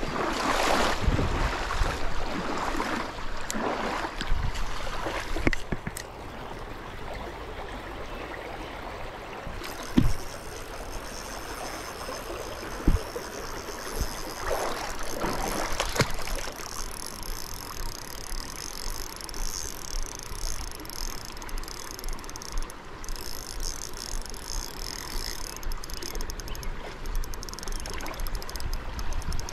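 Shallow creek water rippling over rocks, with handling noises and two sharp knocks, about ten and thirteen seconds in.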